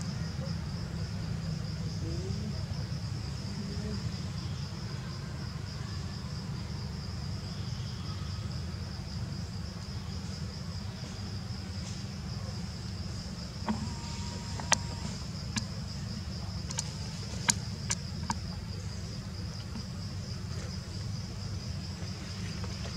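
A steady, high-pitched insect chorus with a fast, even pulse, over a low steady rumble. Several sharp clicks come about two thirds of the way through.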